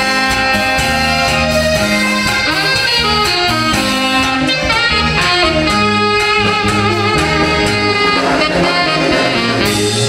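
Live band playing an instrumental break: a saxophone carries the melody with vibrato over a backing of bass, keyboard and drums.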